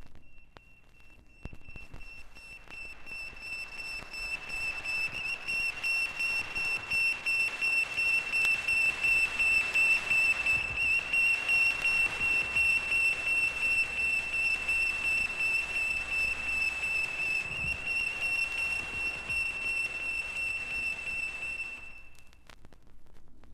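A high, steady whistle tone, pulsing rapidly and evenly, that swells up over the first few seconds, holds, and stops near the end.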